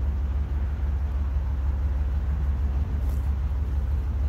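Chevrolet Silverado's V8 idling steadily with a low rumble through a newly fitted Performance Curve dual exhaust with an xLerator muffler. The exhaust is very quiet.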